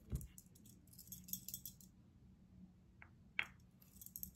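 Faint handling sounds of glass fragrance bottles: a few small clicks and light jingling rattles, the sharpest click about three and a half seconds in.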